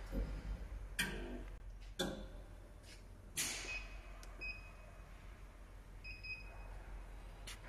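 Keypad of an XY-WB989B wheel balancer's control panel beeping twice as its buttons are pressed: two short, high beeps about two seconds apart. A few sharp knocks come before them in the first seconds.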